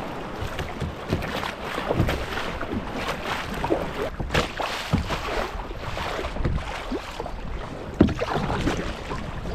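Double-bladed paddle dipping into and pulling through sea water in irregular strokes, with splashes and water gurgling against the plastic hull of a sit-on-top kayak under way.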